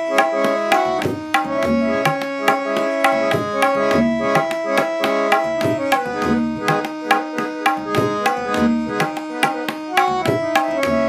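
Harmonium playing a melody of held reed notes over tabla keeping a steady kaharwa rhythm, with a deep bass drum stroke coming round about every two and a half seconds; instrumental only, no singing.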